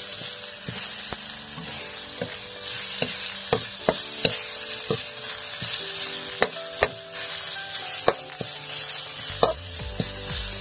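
Chopped aromatics sizzling in hot oil in a metal wok, with a metal spatula stirring them and clicking and scraping against the pan a few times a second.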